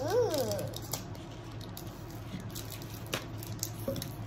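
Small plastic candy wrappers of mini KitKat bars crinkling and tearing as they are opened, in faint scattered crackles. A short rising-and-falling voiced sound comes near the start, and a steady low hum runs underneath.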